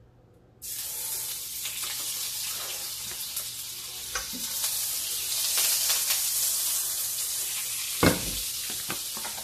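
Food sizzling and frying in a preheated skillet. The sizzle starts suddenly about half a second in as something goes into the hot pan, and it crackles throughout. There is one knock near the end.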